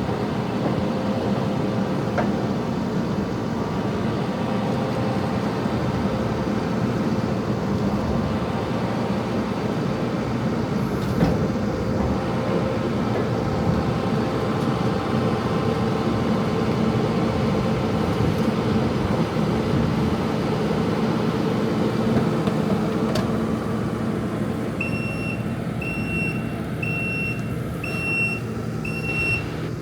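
Heavy vehicle engine running steadily. Near the end a reversing alarm starts beeping about once a second.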